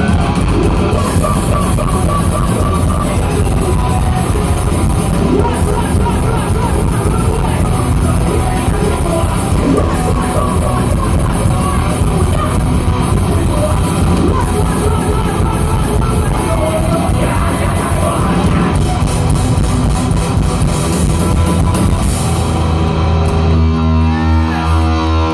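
A rock band playing live: drum kit and electric guitar, dense and loud. About 22 seconds in the drums drop out and sustained guitar chords ring on.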